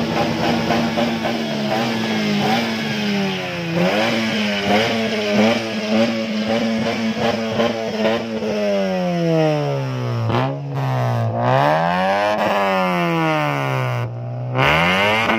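Modified Honda Civic's engine revved through an aftermarket exhaust. It is held at a steady high pitch for several seconds, then falls off and is revved back up three times.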